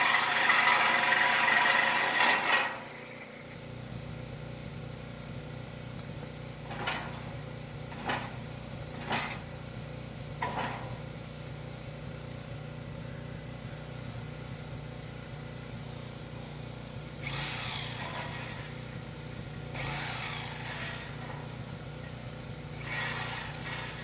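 Sawzall reciprocating saw cutting through mobile-home frame steel, running loudly for the first couple of seconds and then stopping suddenly. A steady low hum continues, with a few short knocks around 7 to 10 seconds in and brief runs of the saw near the end.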